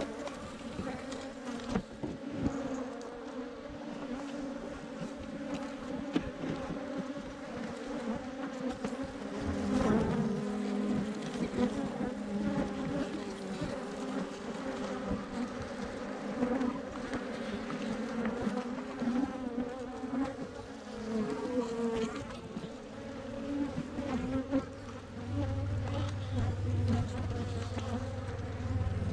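A swarm of Africanized honey bees buzzing as a steady, dense hum, with scattered short knocks and clicks throughout.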